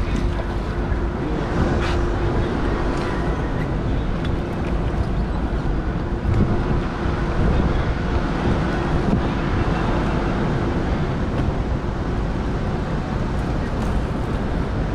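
Steady rumble of wind on the microphone, with a faint steady hum underneath that fades out past the middle.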